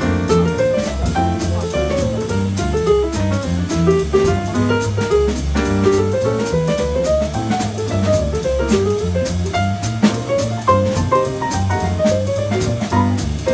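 Live small-group jazz: an upright double bass and a drum kit with frequent cymbal strokes, backing a running melodic solo on another instrument.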